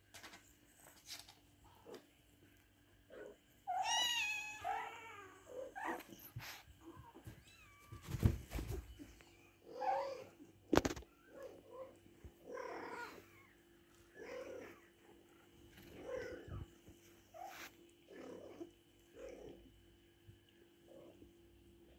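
Kitten mewing while being carried by the scruff by a cat: one loud, high cry about four seconds in, then short mews roughly once a second through the rest. A few dull knocks come around the middle.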